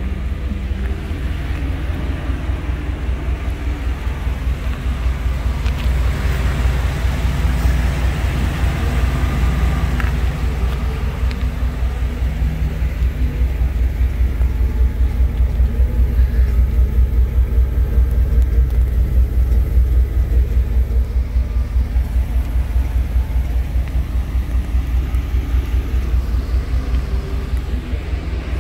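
Fuel-injected 350 (5.7 L) V8 of a 1968 Chevrolet C10 pickup idling: a steady low rumble with an even pulse.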